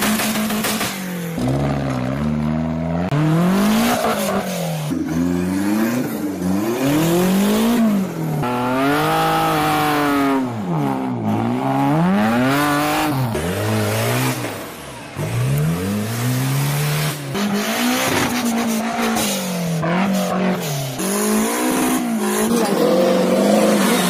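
A modified off-road 4x4's engine revving hard, its pitch rising and falling over and over as the driver works the throttle to claw up a steep mud slope.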